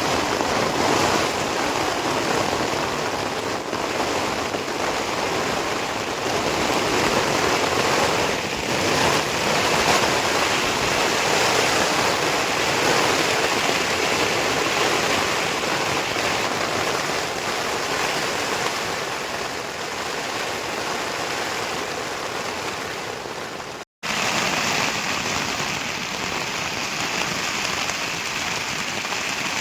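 Heavy monsoon rain beating steadily on a tent and the plastic sheet spread over it, with strong wind. The sound cuts out for an instant about 24 seconds in.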